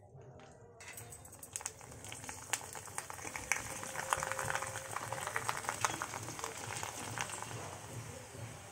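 Mashed-potato fingers deep-frying in hot oil in a wok: a steady sizzle full of small crackles and pops, starting about a second in and growing louder.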